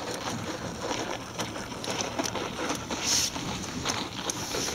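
Outdoor ambience on lake ice: a steady hiss with irregular light clicks and crunches, and a brief louder hiss about three seconds in.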